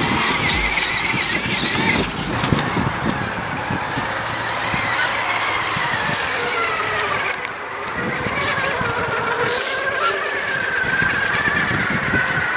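Brushless electric motor and drivetrain of a Traxxas E-Revo 1/10 RC truck, whining as it drives, the pitch rising and falling with the throttle. A few sharp clicks cut in partway through.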